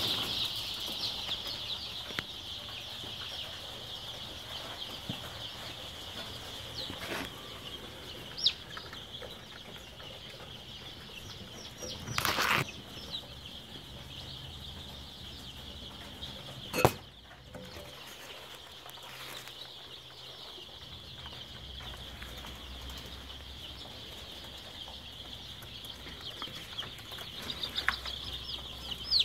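A brood of young chicks peeping together in a steady, high-pitched chorus, with three sharp knocks in the middle, the loudest a little past halfway.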